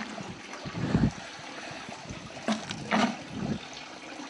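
Wooden plunger butter churn being worked by hand: the wooden dasher plunges into the buttermilk with a few uneven, wet, sloshing thumps, the loudest about a second in. The butter has already come together in clumps in the churn.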